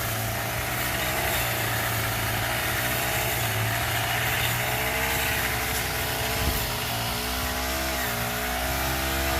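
Honda GX35 four-stroke brush cutter running at high speed while cutting grass, its pitch wavering and dipping briefly under load about seven seconds in, then picking up again.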